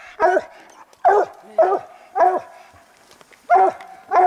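Bear-hunting hound barking at a treed black bear: short, loud barks, about six in all with a pause of about a second partway through, the dog holding the bear up the tree.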